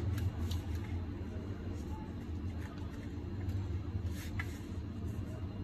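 Faint rustling and a few light ticks as fingers press a dry flour coating onto a stuffed pomfret on a steel plate, over a steady low hum.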